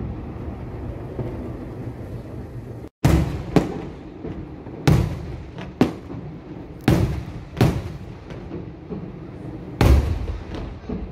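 Aerial fireworks shells bursting: about eight sharp bangs, some in quick pairs, over a continuous low rumble and crackle of the display. The sound cuts out for an instant just before the first big bang.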